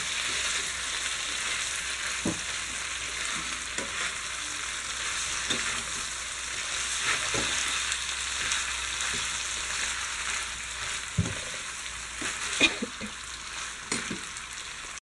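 Pre-cooked beef pieces sizzling in oil in a frying pan as the last of their water fries off, stirred by hand with a spatula that scrapes and knocks against the pan now and then. The sizzle cuts off abruptly just before the end.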